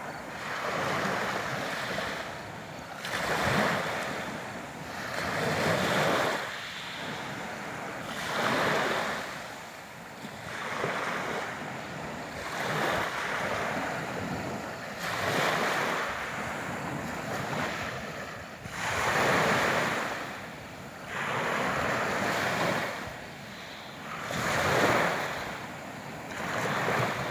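Sea waves breaking on the shore, the surf swelling and falling back every two to four seconds.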